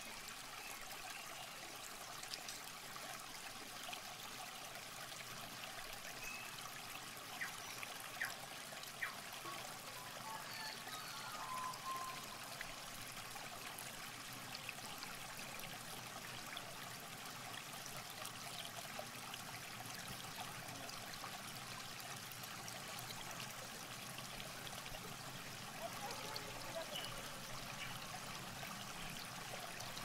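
Faint, steady trickling and lapping of river water.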